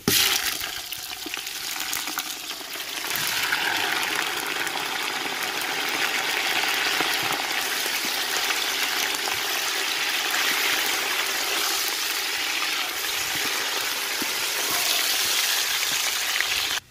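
Raw chicken pieces sizzling in hot oil with deep-browned onions in a large aluminium pot. The sizzle starts suddenly as the chicken goes in, grows fuller about three seconds in, then fries steadily while a wooden spatula turns the pieces.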